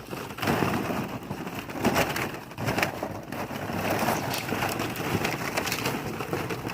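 Plastic ball-pit balls clattering and rustling as puppies root through them, with many small knocks.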